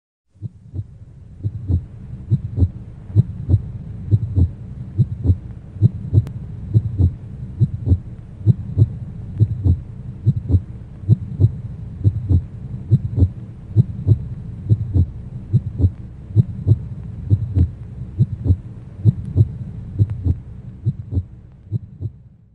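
Heartbeat sound effect: steady low thumps, about three every two seconds, over a low steady hum. It fades in in the first second.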